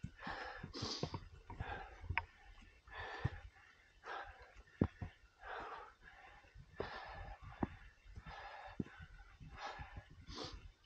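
A climber's hard breathing on a steep ascent, a rasping breath about every second, with a few sharp clicks in between.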